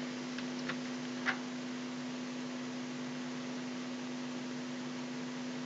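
Steady low electrical hum and hiss of the recording's background noise. Three faint small clicks come in the first second and a half.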